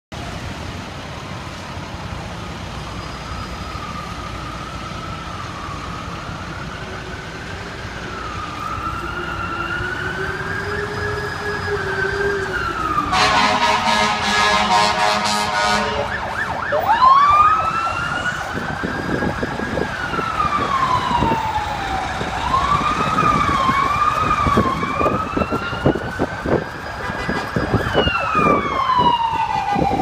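Ambulance siren wailing and growing louder as it approaches, with a steady air-horn blast of about three seconds midway. After that the siren switches to quicker rising and falling sweeps.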